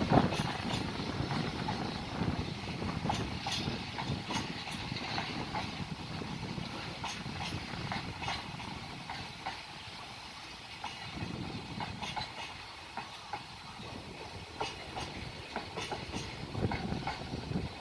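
Container flatcars of a JR Freight train (Koki 100-series wagons) rolling past, with a steady rolling hiss and irregular clicks and clacks from the wheels passing over rail joints.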